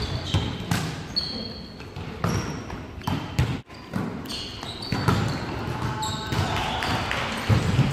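Volleyball rally in a gym hall: sharp knocks of the ball being struck and of players landing on the wooden floor, with short high squeaks and players' shouts echoing in the hall.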